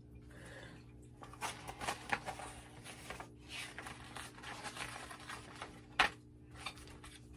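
Paper pages of a picture book being handled and turned: a few seconds of rustling and flipping, then a sharp tap about six seconds in.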